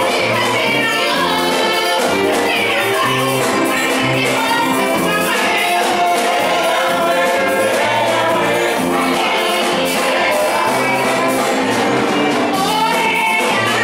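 Live gospel praise music: a group of women singing together over keyboard and drum kit, with a bass line moving in steps and steady percussion throughout.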